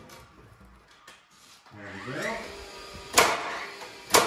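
DeWalt brushless cordless framing nailer spinning up with a rising whine, then driving two 3 1/4 inch nails into 2x4 framing lumber about a second apart, each a sharp loud shot.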